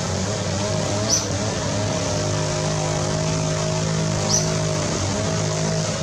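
A steady engine drone, a low hum with a wavering higher tone over it, broken by two short high chirps about a second in and a little past four seconds.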